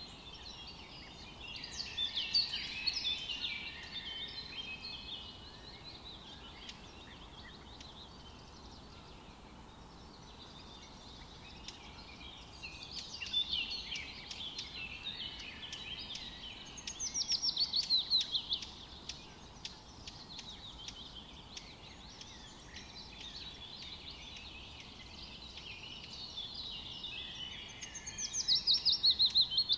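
Songbirds singing: busy twittering calls, and twice a fast trill about a second and a half long that falls in pitch, once past the middle and again near the end, over a faint steady outdoor hiss.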